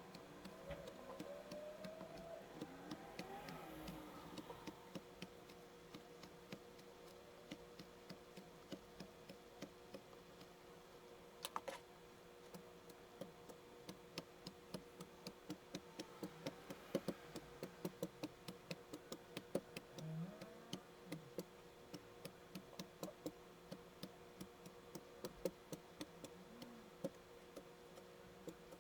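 Kinetic sand being scratched and cut, sped up four times: quiet, rapid small clicks and ticks, several a second, over a faint steady hum.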